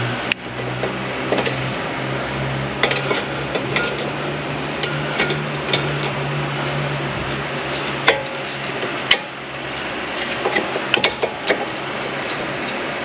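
Brake pad's steel backing plate and its spring abutment clips clicking and clinking against the caliper bracket as the pad is worked into place, a dozen or so irregular metal clicks. A steady low hum runs underneath.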